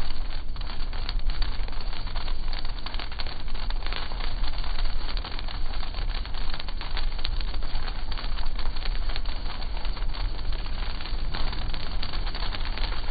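Dense, rapid ticking and crackling of large sleet pellets striking a car's windshield and body, heard from inside the car and slowed down in slow-motion playback.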